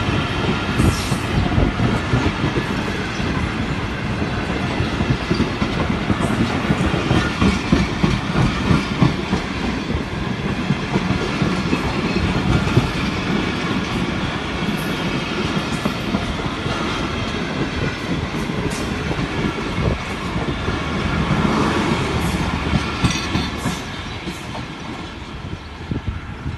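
Pakistan Railways passenger coaches rolling past close by, the wheels clattering over rail joints over a steady rumble. The sound eases off near the end as the last coach pulls away.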